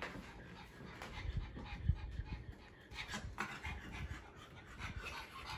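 Pugs panting in short, irregular breaths, with a few soft thumps about a second and a half in.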